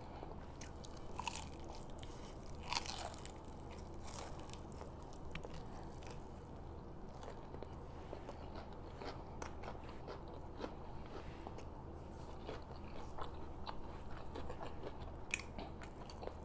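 A person chewing and biting food close to the microphone, with scattered soft crunches and clicks, over a faint steady low hum.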